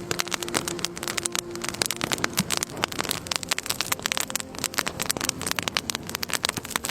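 Precipitation pattering densely on a surface: many sharp, irregular ticks every second with no pause.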